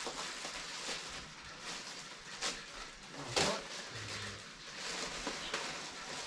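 Cardboard boxes and plastic packaging being rummaged through and handled, a crinkly rustling with a few sharper knocks, the loudest about three and a half seconds in.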